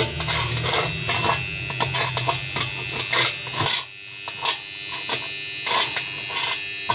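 Irregular clicks and scrapes of a small metal tool against a stainless steel washing machine tub as a piece of rubber is pushed into a hole in it, over a steady high-pitched electrical buzz. A low hum under it stops about four seconds in.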